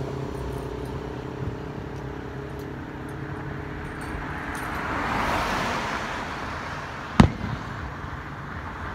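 Vehicle engine running with traffic noise, and a vehicle passing with a swelling rush about five seconds in. About seven seconds in comes a single sharp firework bang, the loudest sound.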